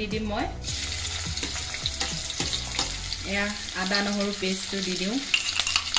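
Sliced onions hit hot oil in a metal kadai about half a second in and fry with a steady sizzle. A voice is heard briefly in the middle.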